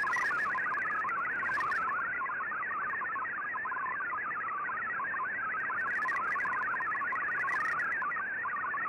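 Shortwave Radiogram's MFSK digital text broadcast on 15770 kHz, received on an Icom IC-R8600: a fast, unbroken warble of single tones hopping among many pitches, over shortwave hiss. The signal is clear enough that Fldigi is decoding the news text as it plays.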